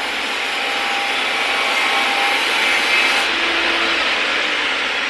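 A steady, even rushing noise with no breaks, running without change through the whole stretch.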